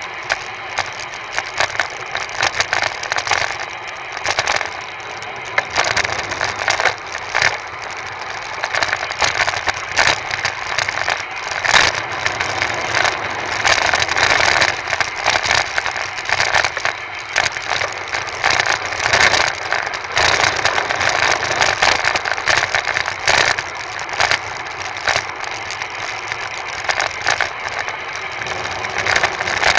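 Rattling and knocking of a bike-mounted action camera jolted by the road surface, over a steady rush of wind and tyre noise from a road bike riding on asphalt. The rush grows louder through the middle stretch, with short knocks throughout.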